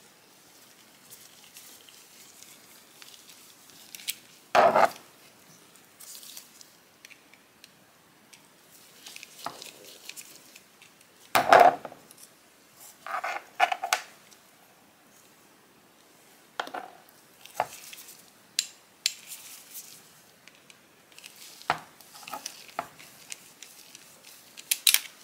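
Screwdriver and small steel parts of an 1895 Singer 15-11's bobbin winder clinking and scraping as the mechanism is unscrewed and handled. Scattered metallic clicks, with louder clinks about five and eleven seconds in.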